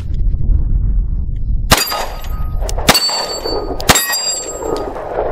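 Three 9mm pistol shots about a second apart, the first about 1.7 seconds in, each followed by the ringing clang of a steel plate target being hit.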